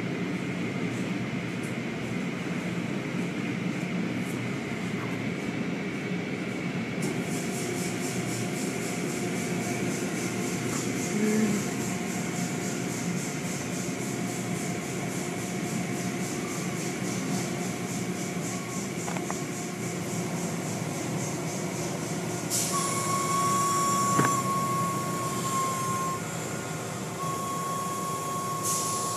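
Car wash machinery running with a steady mechanical noise. A fast rhythmic high-pitched noise joins about a quarter of the way in, and a steady high whine is added about three quarters of the way through.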